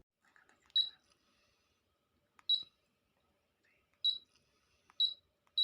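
Kova Vabel humidifier diffuser's control panel giving short, high electronic beeps as its buttons are pressed: five beeps at uneven intervals, with faint clicks between them.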